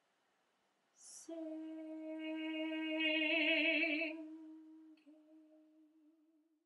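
Mezzo-soprano voice singing one long held note with vibrato, growing louder towards the middle and then fading, with a short break in the note near the end. A brief hiss, like a sung 's', comes just before the note begins.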